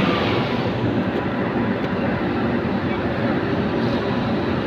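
Steady, even drone of heavy diesel machinery running without let-up.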